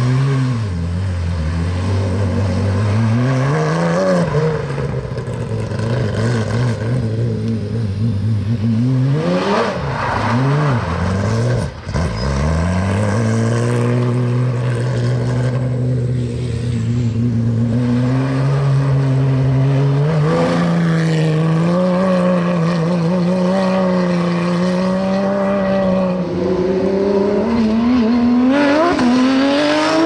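Porsche GT3 Cup race car's flat-six engine revving up and down, with a brief cut about twelve seconds in, then holding steady revs for several seconds at a time and climbing again near the end.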